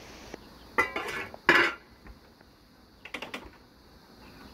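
Steel shovel blade scraping and clinking against stony soil: two loud ringing scrapes about a second in, then a weaker scrape about three seconds in.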